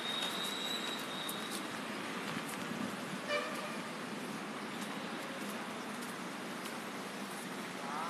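Steady outdoor background noise, with a thin high tone in the first second and a half and a short, distant vehicle horn toot about three seconds in.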